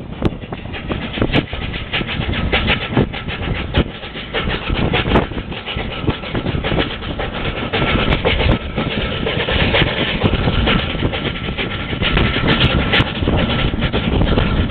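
Steam tram running along its track, heard from its top deck: a steady rumble with irregular clattering knocks.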